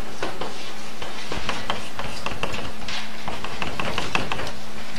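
Chalk writing on a blackboard: a quick, irregular run of sharp taps and short scratches as the characters are written stroke by stroke.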